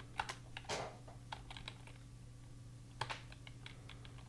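Typing on a computer keyboard: a faint, irregular run of key clicks that thins out to a short pause in the middle, over a low steady hum.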